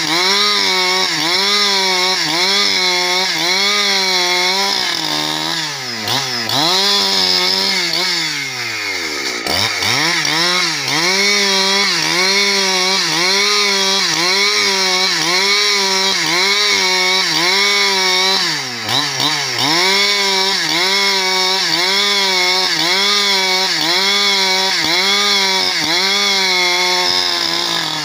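Husqvarna 365 two-stroke chainsaw ripping a log lengthwise into planks, engine at high revs under load with its pitch rising and falling about once a second as the saw rocks in the cut. Several seconds in, the engine slows steeply and climbs back to speed, and it dips briefly twice more later.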